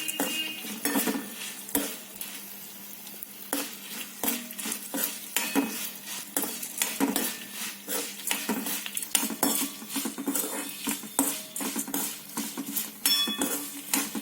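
A spoon stirring and scraping in a pan of sizzling tempering (lentils, mustard seeds, garlic and dried chillies frying in oil), with many short clinks and scrapes over a steady sizzle.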